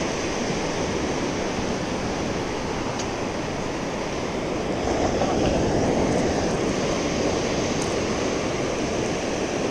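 Small sea waves breaking and washing up a sandy beach, a steady rush that grows louder about five seconds in.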